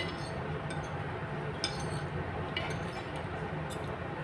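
Fork and spoon clinking and scraping against a ceramic plate, several light clinks about a second apart, over a steady low hum.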